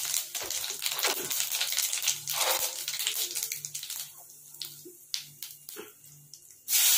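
Cumin seeds crackling and spluttering in hot oil in a kadai: a dense run of small pops that thins out to scattered pops after about four seconds. Near the end a loud, steady sizzle starts suddenly as onion goes into the hot oil.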